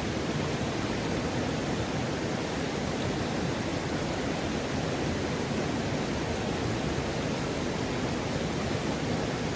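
Waterfall on a river: a steady, even rush of falling water with no breaks or changes.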